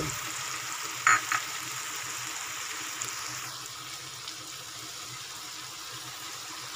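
Sliced eggplant and tomato sizzling steadily in a wok, with two sharp taps about a second in.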